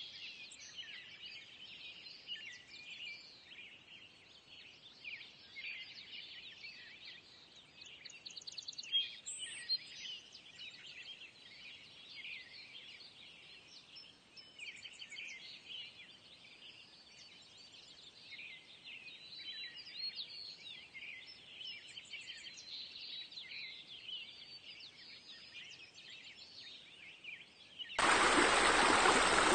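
Songbirds chirping and trilling in a busy chorus, high-pitched and fairly faint. About a second and a half before the end it cuts suddenly to a loud, steady rush of running water.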